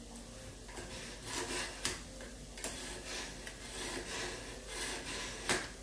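Kitchen knife blade drawn repeatedly through a handheld knife sharpener: a series of short rasping strokes, roughly one or two a second, with a sharper scrape near the end.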